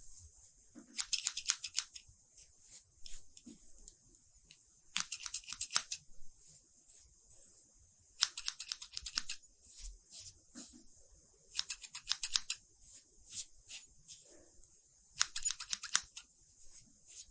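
Scissors snipping hair in quick runs of snips, five runs a few seconds apart, with a faint steady hiss underneath.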